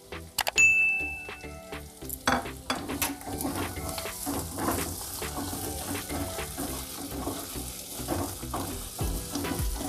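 Chopped onion, capsicum, spring onion, ginger and garlic sizzling in a little hot oil in a metal kadai, stirred with a spatula that scrapes and knocks against the pan. The sizzling grows louder a couple of seconds in as the stirring gets going.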